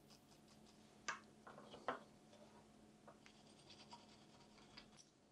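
Faint clicks and ticks of small 3D-printed plastic parts and a super glue bottle being handled while glue is run along a joint, with two slightly louder clicks about one and two seconds in.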